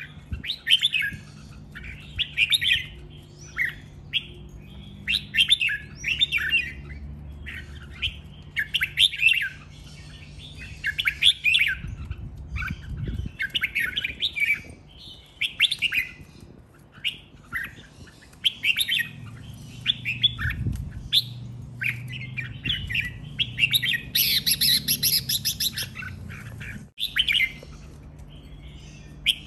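Red-whiskered bulbul singing short, clear song phrases one after another, each about a second apart, with one harsher, hissier burst near the end.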